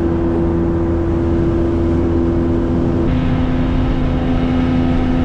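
Boat's outboard motor running steadily at cruising speed, with a low rumble of hull and water beneath the drone. About three seconds in the drone steps to a lower, steady pitch.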